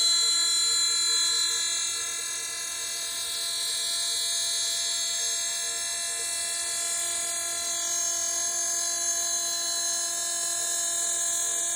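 CNC router spindle running with a steady high-pitched whine of many held tones, like a dental drill, while carving.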